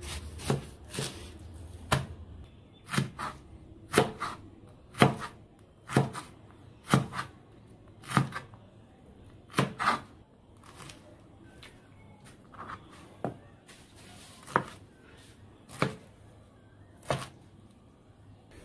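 Kitchen knife chopping pineapple on a plastic cutting board: sharp knocks about once a second, often in quick pairs, growing sparser after about ten seconds.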